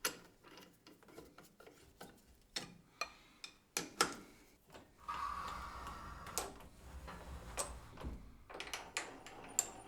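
Faint, scattered clicks and light knocks of hardware being handled on a workbench. About five seconds in, a faint steady hum starts underneath.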